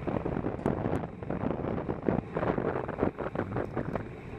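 Wind buffeting the microphone of a camera moving through a city street: an uneven rushing noise that keeps surging and dropping.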